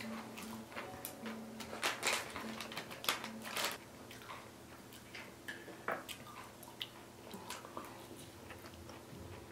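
Tangerines being peeled and pulled apart by hand: faint, scattered tearing and crackling of the peel in short clicks.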